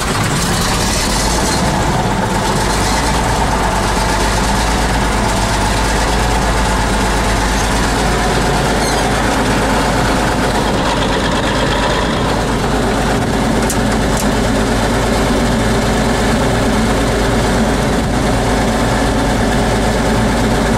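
The diesel engine of a T-150K wheeled tractor idles steadily just after starting, heard from inside the cab. It is warming up while the air-brake system builds pressure.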